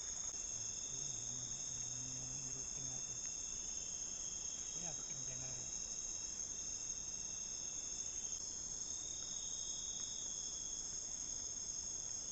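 Steady, high-pitched chorus of night insects, a continuous chirring that holds without a break.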